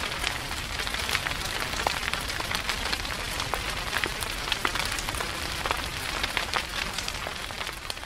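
Fire burning through grass and brush: a steady hiss with many sharp crackles and pops, starting to fade near the end.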